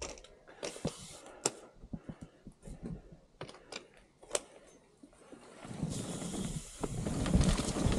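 Scattered clicks and small knocks from a Rocky Mountain Altitude mountain bike being handled and pushed off, then, about six seconds in, a rising rumble of tyres rolling over the dirt trail as the bike gathers speed.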